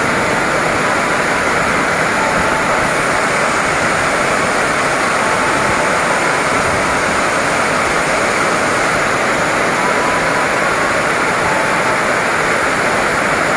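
Heavy rain pouring down steadily: a loud, even hiss of downpour with no let-up.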